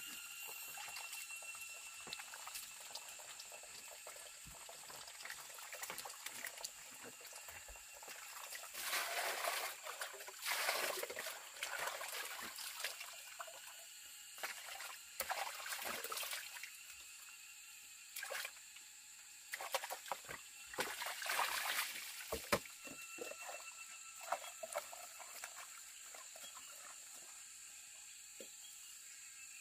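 Water trickling and splashing in several short spells of a second or two, over a faint steady high whine.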